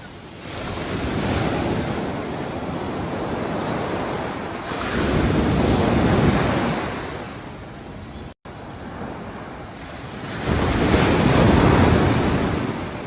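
Ocean waves breaking and washing in, a steady rush of surf that swells three times as successive waves come in. The sound drops out for an instant a little past the middle.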